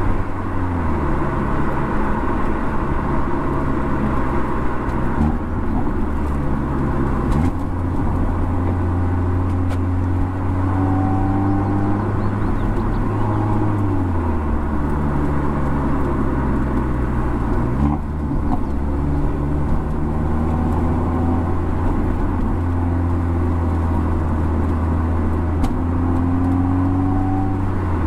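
Mercedes-AMG CLA45's turbocharged 2.0-litre four-cylinder engine and exhaust under way, the note climbing slowly as it accelerates and jumping sharply up or down a few times.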